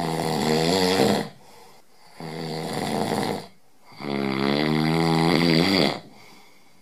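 A person's voice making three long, drawn-out sounds with a wavering pitch, each one to two seconds long, with short gaps between.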